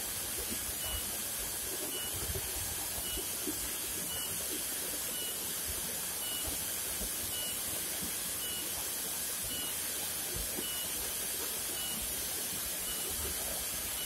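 Tall waterfall's steady, even rushing hiss.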